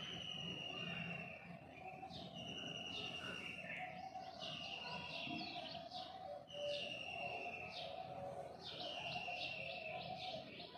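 High-pitched chirping calls, repeated about every two seconds. Each phrase is a held whistle followed by a quick run of short chirps.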